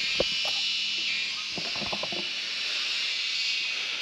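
Steady high-pitched chorus of insects, with a few light clicks and taps near the start and again about two seconds in.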